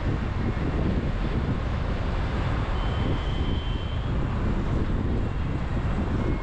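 Steady rushing, rumbling noise, heaviest in the low end. A faint, thin, high tone comes in for about a second, about three seconds in.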